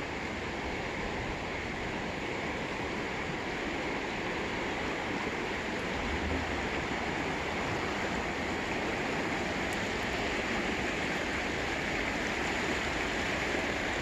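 Truckee River running over shallow rocky riffles: a steady rush of water that grows slightly louder.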